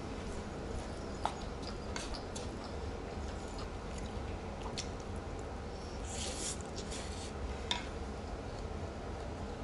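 Close-up eating sounds: chewing a mouthful of bibimbap, with a few soft clicks of a wooden spoon and chopsticks against the bowl and a brief rustling scoop about six seconds in.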